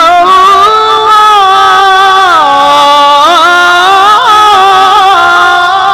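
A man's voice chanting in the melodic Quranic recitation style: one long, unbroken melismatic phrase whose pitch glides and turns through ornaments.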